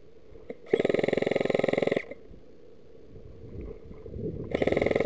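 Airsoft electric gun firing two full-auto bursts, a rapid even chatter of about fifteen shots a second: the first about a second in and lasting just over a second, the second near the end and lasting about a second.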